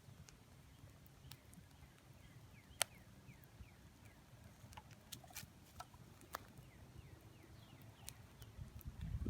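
Wood bonfire of broken tree limbs burning: scattered sharp crackles and pops over a low, steady rumble of the flames, with one louder snap about three seconds in.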